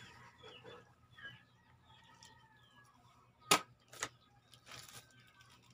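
Two sharp knocks about half a second apart, then a short scrape, as a hand works at a plastic tub of fish, over faint high chirps in the background.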